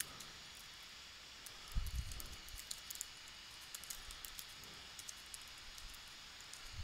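Faint computer keyboard typing: light, irregular key clicks over a low steady hiss, with a soft low thump about two seconds in.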